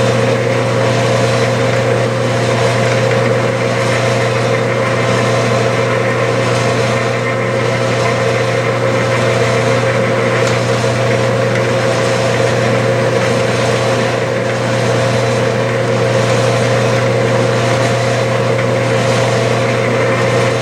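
Clausing metal lathe running steadily in back gear at slow speed while a single-point tool takes thread-cutting passes near full depth on a two-start thread: a steady mechanical hum and whine.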